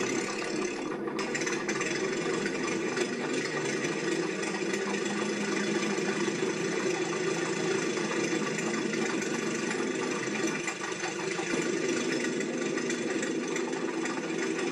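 Added foley traffic sound: an old motor engine running steadily, with the general rumble and clatter of a busy street.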